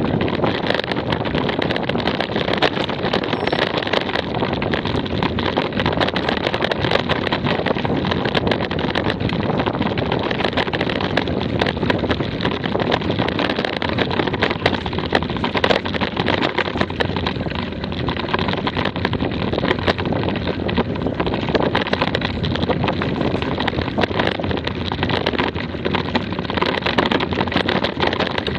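Mountain bike riding over a rough dirt woodland trail, heard through a bike-mounted action camera: a steady rumble of tyres on the ground with a dense run of rattles and knocks from the bike, and wind buffeting the microphone.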